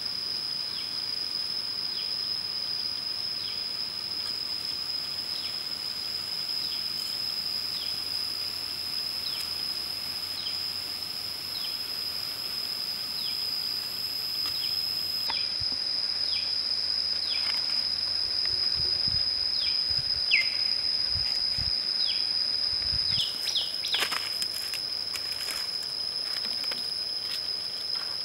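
Forest ambience: insects drone at one steady high pitch while a bird repeats short, falling call notes every second or two. A few sharp snaps and rustles come near the end.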